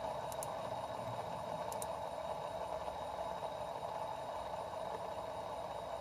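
Aluminium bar-spinner fidget toy spinning freely on its bearing with a steady whir, with a few faint high ticks in the first two seconds.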